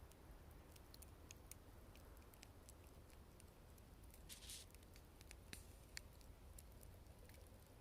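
Wood fire crackling: scattered sharp pops and ticks at an irregular pace, with a brief hiss a little past halfway and a louder pop soon after.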